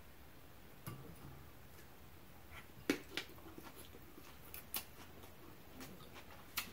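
Close-up eating sounds of a person taking and chewing a bite of noodles: a handful of short, wet mouth clicks and smacks. The loudest comes about three seconds in.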